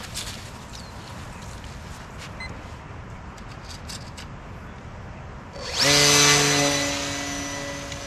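Small RC model plane's electric motor and propeller throttling up suddenly near the end with a steady high whine and buzz, then fading somewhat; before that only faint outdoor background.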